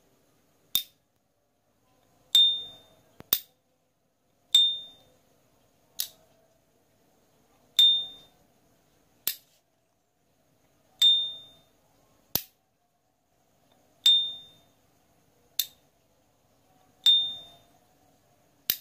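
S.T. Dupont lighter's lid flicked open and snapped shut over and over: each opening gives its high, clear ping that rings briefly, and each closing a short sharp metallic click. Six pings alternate with seven clicks, about a second and a half apart.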